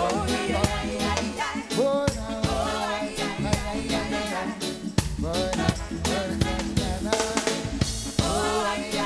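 Reggae music with a steady drum-kit beat of snare and rimshot hits and a melody line over it.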